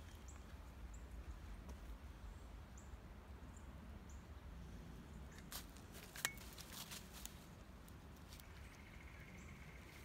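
A short bout of crackling and crunching in dry leaves and snow a little past the middle, with one sharper snap, over a faint low rumble. Faint high bird chirps come in the first few seconds.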